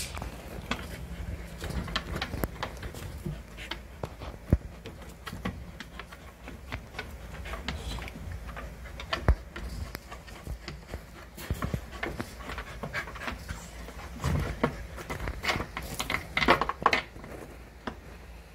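A pregnant husky in labor panting and shifting about, her paws scratching and rustling the torn cardboard lining of her crate in many irregular sharp scrapes and clicks.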